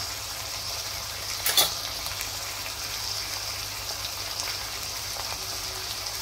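Diced green tomatoes sizzling gently in oil in a steel kadhai over a low flame, a steady hiss. One sharp click sounds about one and a half seconds in.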